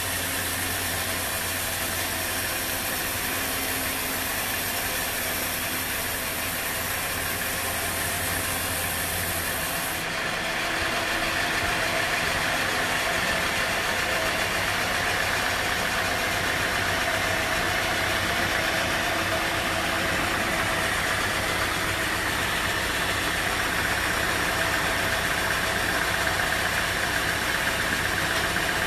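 Band sawmill running, its blade ripping lengthwise through a squared teak beam: a steady machine drone with a steady whine. The sound changes abruptly about ten seconds in.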